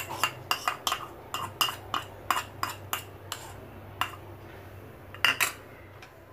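A small bowl clicking and knocking against a steel plate as paste is scraped out of it onto minced meat: a fast run of taps, thinning out after about three and a half seconds, with a last pair about five seconds in.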